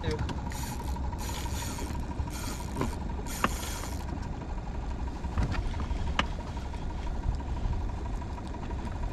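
Boat engine idling, a low steady hum, with scattered light clicks and four short high hissing bursts in the first four seconds.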